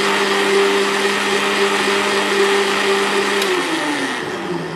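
Electric countertop blender running steadily, blending peach juice in its glass jar. About three and a half seconds in it is switched off with a click, and the motor's pitch falls as it spins down.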